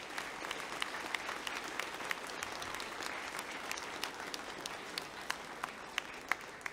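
Audience applauding: a dense, steady spatter of clapping hands that thins out near the end.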